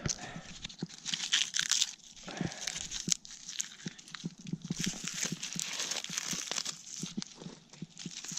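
Dry tinder crackling, crunching and snapping as it is gathered and broken up by hand for starter fuel: an irregular run of small crackles and rustles.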